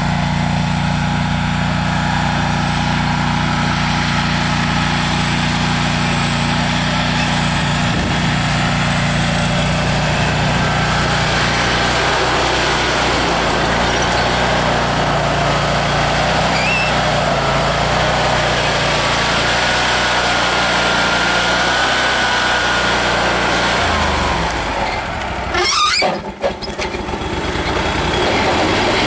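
Carlton SP4012 stump grinder's Kohler 27-horsepower Command Pro V-twin gas engine running steadily as the machine is driven and steered, with a faint whine that wavers in pitch over the second half. Near the end the sound briefly dips and jolts.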